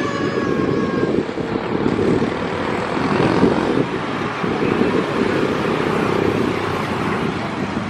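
Diesel engine of a CC 206 diesel-electric locomotive running steadily as it slowly moves a rake of passenger carriages during shunting, a continuous low rumble.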